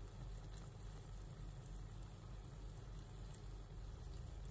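Thick okra masala gravy simmering in a non-stick pan, bubbling and sizzling faintly with scattered small pops, over a low steady hum.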